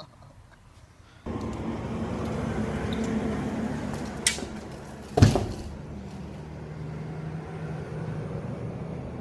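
A thick battle rope swung overhead like a skipping rope, giving a sharp slap about four seconds in and, a second later, a loud heavy smack as it strikes the man swinging it. A steady room hum of the gym runs underneath.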